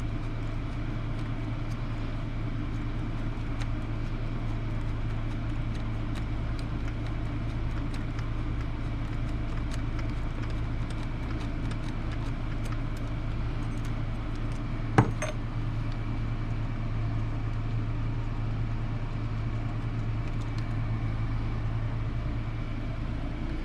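Steady low hum of the workshop with faint scattered clicks of small tools and metal parts being handled, and one sharper click about fifteen seconds in.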